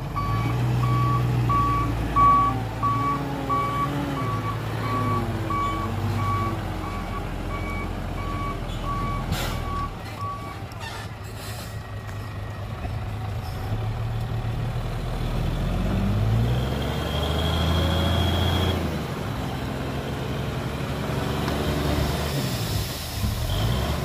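Heavy construction vehicle's diesel engine running, with its reversing alarm beeping about twice a second for the first ten seconds. The engine note rises about two-thirds of the way in.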